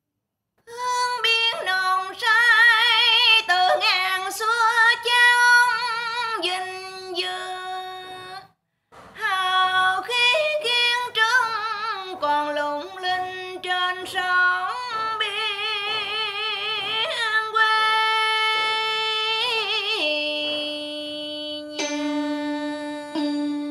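A woman singing a Vietnamese ca cổ-style song with strong vibrato and long held, ornamented notes. She comes in just under a second in and pauses briefly near the middle.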